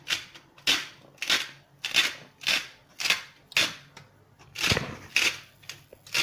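A hand-turned salt mill grinding salt over a pan of onions. It gives about ten short rasping grinds, roughly two a second, with a brief pause past the middle.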